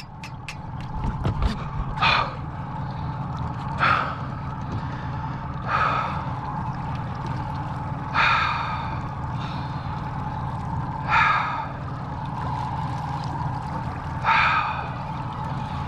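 A man breathing hard, with six heavy gasping breaths two to three seconds apart, winded from fighting a big grouper that stripped drag. Under the breaths a boat motor hums steadily.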